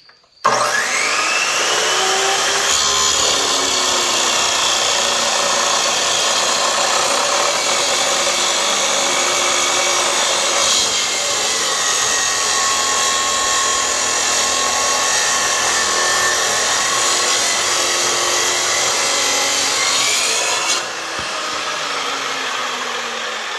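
Handheld Evolution metal-cutting saw spinning up and cutting through a steel pin, a steady loud grinding whine for about twenty seconds. Near the end it drops in level as the cut finishes and the blade runs down.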